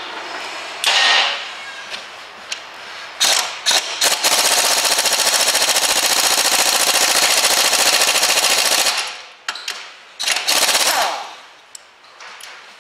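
Impact wrench hammering on a front suspension bolt: a few short bursts, then one long rattling run of about five seconds, and one more short burst near the end.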